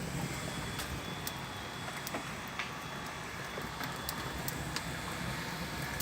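Wood fire slowly catching in a brick firebox: irregular sharp crackles every half second or so over a steady low rumble.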